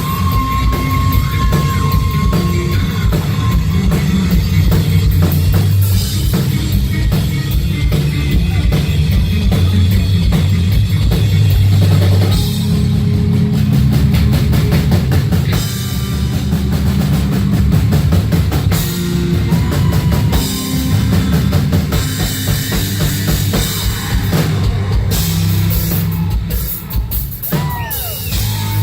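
Live rock band playing loud: an electric bass solo carried by a heavy, pounding drum kit, with cymbals and a few sliding high notes over the top.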